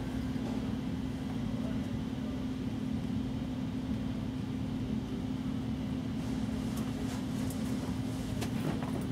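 Steady low mechanical hum, with a few faint clicks in the last few seconds.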